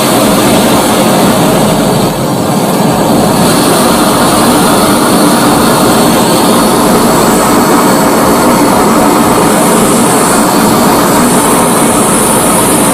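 Handheld gas torch burning with its valve opened, a loud steady rushing flame noise that holds even throughout.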